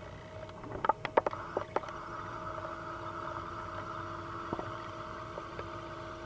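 A few sharp metallic clicks and taps about a second in, and one more past the middle, as the parts of a Cooey Model 64 .22 rifle are handled during reassembly. Under them runs a steady whine from the camera's own noise.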